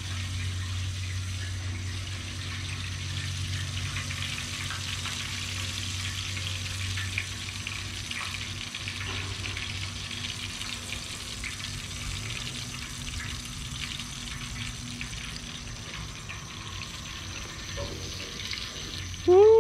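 Breaded red snapper nuggets frying in shallow vegetable oil in a pan, a steady sizzle with fine crackling. A steady low hum runs beneath it.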